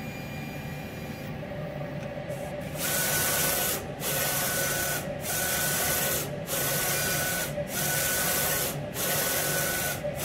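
Roland SP-540V wide-format inkjet printer printing its head-alignment test pattern at head-height high. After a quieter hum, the print head carriage starts sweeping back and forth about three seconds in. Each pass lasts about a second with a steady whine, with short pauses about every 1.2 seconds.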